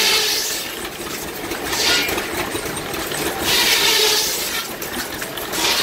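Wood lathe running with a waxed cloth held against the spinning wooden bat, a steady rushing hiss that swells and fades about every two seconds over a low motor hum. The cloth friction heats the wax so it soaks in and hardens into a hard finish.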